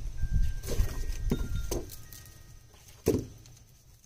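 Wood fire crackling in an open-door cast-iron wood stove, with scattered small pops and one sharper pop about three seconds in. A low rumble of wind on the microphone sits underneath and fades about halfway through.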